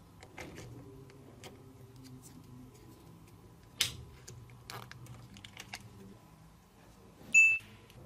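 Small neodymium magnetic balls clicking and ticking against each other as they are pushed and nudged into place with thin plastic cards, in scattered light taps with one sharper click midway. A brief high-pitched tone near the end is the loudest sound.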